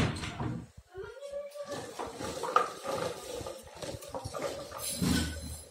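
A toddler's wordless vocalizing over the clatter of a small plastic ride-on toy rolling and bumping on a tiled floor, with a sharp knock at the very start as the toy hits a wooden door and another clack about two and a half seconds in.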